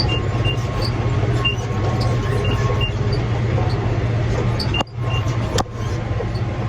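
Tractor engine running steadily while pulling a New Holland BR 750 round baler through hay, as the bale builds in the chamber. Short high beeps, mostly in pairs, come every second or so. The sound cuts out briefly about five seconds in.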